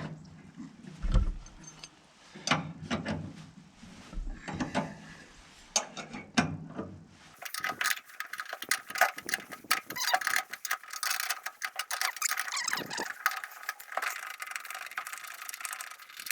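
Metal tool parts knocking and clicking for the first few seconds. Then a long run of fast metallic ratcheting clicks with a rasping grind follows as the threaded screw of an early Ford door-hinge pin removal tool is wound up to put pressure on the pin.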